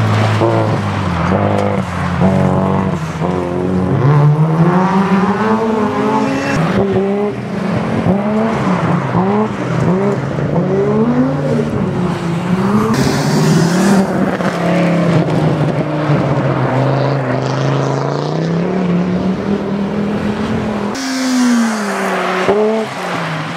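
Rally cars on a gravel track, engines revving up and dropping back again and again through gear changes, with more than one car audible at once. Near the end a car slides through the corner with a hiss of tyres on loose gravel.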